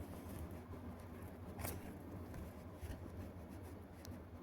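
Quiet room tone with a steady low hum and a few faint clicks, the clearest about one and a half seconds in.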